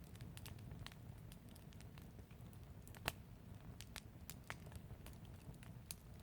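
Open fire crackling: scattered, irregular pops and snaps, the sharpest about three seconds in, over a faint low rumble.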